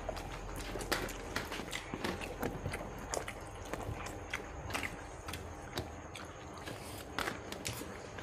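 People eating rice and fish curry by hand, with a steady run of irregular short clicks and smacks of chewing and mouth noises.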